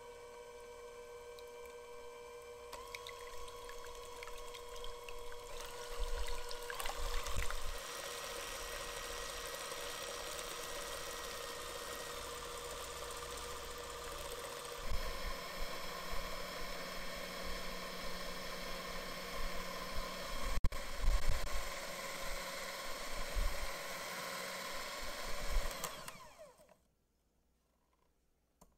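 KitchenAid electric hand mixer running, its wire beaters whisking egg whites and powdered erythritol in a glass bowl into stiff-peak meringue: a steady motor whine over a wet whisking noise, shifting in pitch a couple of times, with occasional low knocks, and stopping shortly before the end.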